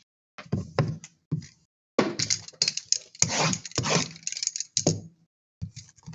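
Handling noise on a tabletop: irregular rustling of card packaging and wrappers with clicks and light knocks, coming in short bursts with brief gaps.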